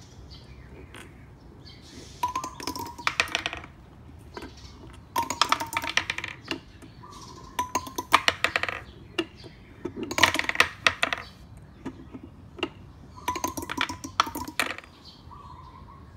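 Glass marbles released from the top of a homemade wooden Plinko board, clattering down through the pegs and clinking into the bins at the bottom, five runs a couple of seconds apart. A brief high tone comes just before each run.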